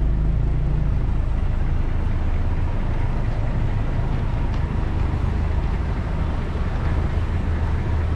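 Steady low rumble of bus engines running close by, with general traffic noise.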